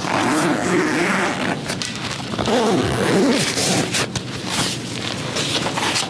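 Zipper of a soft fabric pistol case being pulled open around the case, in two main runs of rasping.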